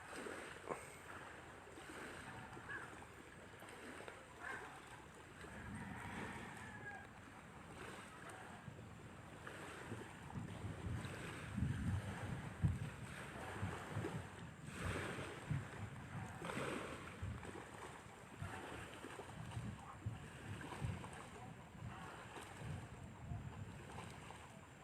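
Wind gusting over the microphone in an irregular, noisy rush, with low buffeting bumps that are strongest around the middle.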